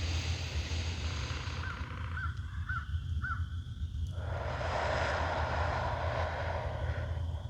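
Wild birds calling in woodland: four short, clipped chirps in quick succession about two seconds in. A soft rushing sound follows near the middle, over a steady low rumble.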